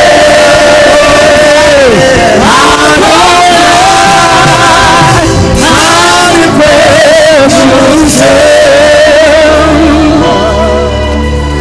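Gospel worship singing: a voice holds long notes with vibrato and slides between pitches over band accompaniment. About ten seconds in the singing drops away, leaving steady held keyboard chords and bass.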